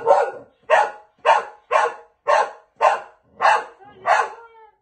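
A dog barking repeatedly, about two sharp barks a second, with a short whine between barks near the end.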